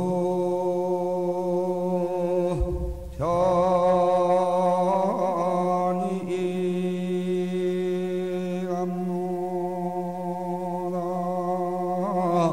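A monk's solo voice chanting Korean Buddhist liturgy in long held notes that slide up and down in pitch, with a short pause for breath about three seconds in.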